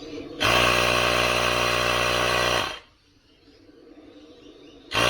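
Small electric air compressor inflating an electric unicycle tyre in short bursts: it runs steadily for about two seconds, winds down to a stop, and starts again near the end. The tyre is being pumped up a bit at a time so the bead seats centred on the rim.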